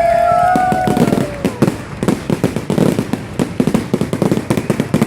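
Fireworks: whistling shells trailing off in the first second, then a fast, dense crackle of many small sharp pops.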